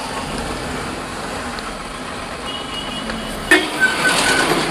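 A Maruti 800's 796 cc three-cylinder engine and its tyres running steadily on the road while the car is driven smoothly. About three and a half seconds in, a sudden louder noise breaks in, carrying a couple of brief high tones.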